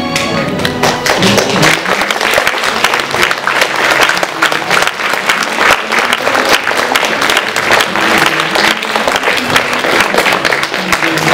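Audience and cast applauding steadily, a dense crowd of hand claps that starts abruptly as the music gives way.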